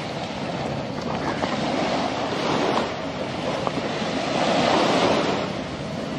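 Sea water washing and wind buffeting the microphone: a steady rushing noise that swells a little about four to five seconds in, with a few faint clicks.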